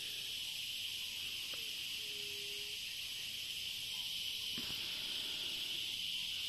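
Steady chorus of insects, a continuous high-pitched buzzing hiss, with a brief faint low steady note about two seconds in.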